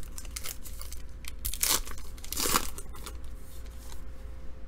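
A trading card pack's wrapper being torn open and crinkled, with two louder rips near the middle.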